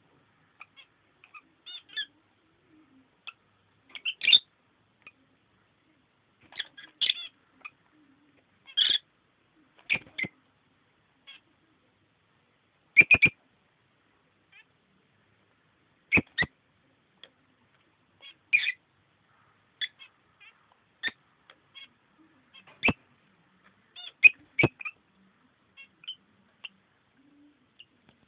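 Rosy-faced lovebirds giving short, sharp high calls, singly or in quick clusters, at irregular intervals of a second or two.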